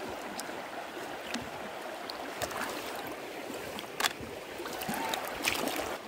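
Shallow creek water running steadily, stirred by a gloved hand gathering freshwater snails in the shallows, with a couple of sharp splashes about four and five and a half seconds in.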